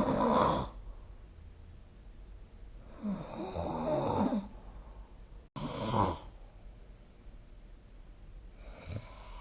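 A sleeping person snoring, one snore about every three seconds, each lasting a second or so, with quieter breathing between them. There is a momentary cut in the sound just before the third snore.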